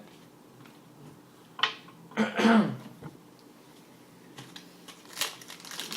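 Trading card packs and cards being handled: light rustling and quick clicking, denser in the last second and a half. About two seconds in comes a louder short sound that falls in pitch.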